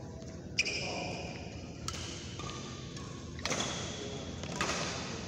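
Badminton rackets striking shuttlecocks, four sharp hits a second or so apart, the first the loudest, echoing in a large hall. There are short squeaks of shoes on the court mat between them.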